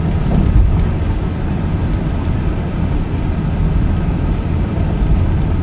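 Car driving at steady speed, heard from inside the cabin: a steady low rumble of engine and tyre noise.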